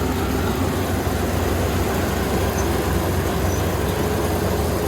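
Kubota ER470 combine harvester running steadily, a constant, even machine noise with a low hum and one steady tone that does not change.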